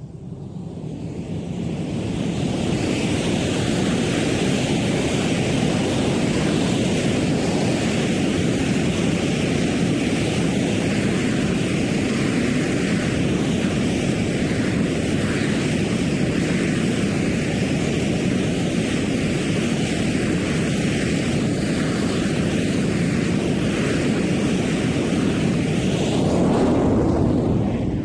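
F/A-18 Hornet jet fighter's twin turbofan engines running, a loud, steady rushing noise that fades in over the first couple of seconds, swells slightly near the end and then dies away.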